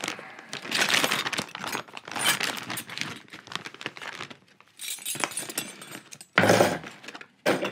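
Clear plastic zip-lock bag crinkling as it is handled and opened, with small stainless steel hardware (D-rings, quick links, tri-gliders) clinking against each other as it is tipped out. There is a louder clatter near the end.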